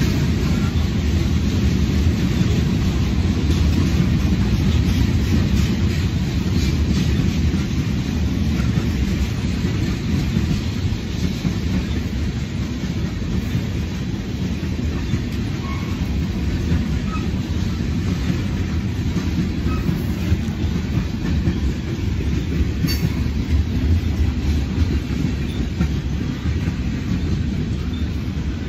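Freight train's tank cars and boxcars rolling past at close range: a steady, heavy rumble of steel wheels on rail.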